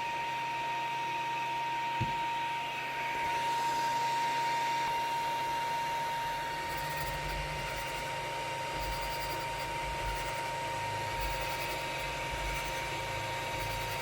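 3D printer running: a steady fan hum with a constant high whine, and the stepper motors moving the print head, with uneven low rumbling from about seven seconds in. A single click about two seconds in.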